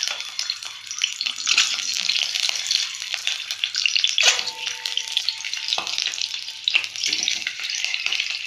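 Peeled boiled eggs sizzling in hot oil in an iron kadhai, with a few sharp knocks as more eggs are set into the pan.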